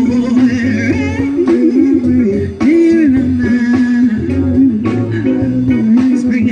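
Band music in an instrumental section: a bending, sliding lead melody over a bass line and a steady drum beat, with no sung words.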